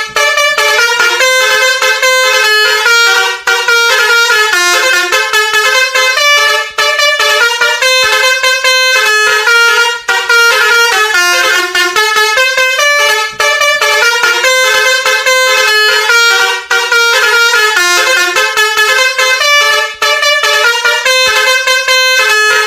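Basuri V3 multi-tone musical horn playing a fast melody of stepping notes without a break, the phrase repeating about every three seconds.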